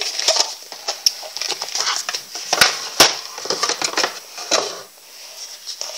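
A DVD box set's packaging and cases being handled: rustling and scraping with a run of sharp clicks, the two loudest about two and a half and three seconds in.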